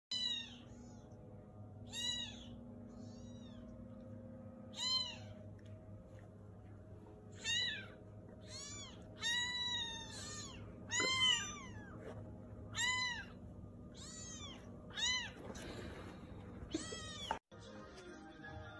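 Very young kittens mewing over and over: short, high-pitched meows that rise and fall in pitch, coming a second or so apart and stopping near the end.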